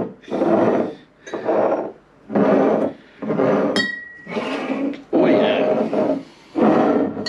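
Glass beer bottles and a can being handled and shifted about on a bar counter: a run of loud handling noises about once a second, with one bright glass clink about four seconds in that rings briefly.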